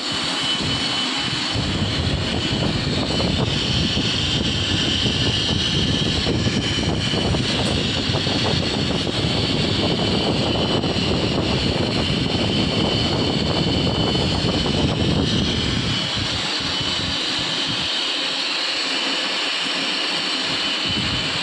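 Lathe running with a steady mechanical noise. A heavy low rumble drops away about three-quarters of the way through, leaving a steadier, higher hum.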